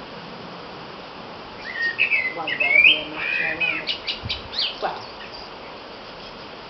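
Blue tits calling: a burst of high chirps and gliding notes lasting about three seconds, starting nearly two seconds in and ending in a quick run of short ticking notes.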